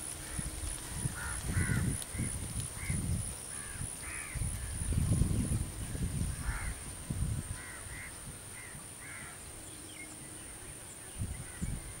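Crows cawing repeatedly, a run of short harsh calls in the first half and another cluster around the middle. Bursts of low rumble on the microphone come and go, loudest about five seconds in.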